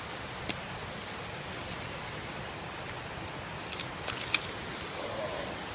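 Steady rushing of the Tule River's whitewater below, with a few sharp snaps of dry twigs and brush underfoot, the loudest a little past four seconds in.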